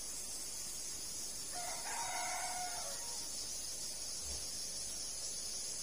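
A rooster crows once, about a second and a half in, over a steady high hiss.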